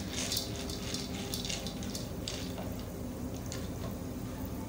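Popcorn kernels being stirred with a wooden spoon in hot oil in a black wok: a steady light sizzle with scraping and clicking of kernels against the pan, the strokes denser in the first couple of seconds. The kernels are being roasted and have not yet started to pop.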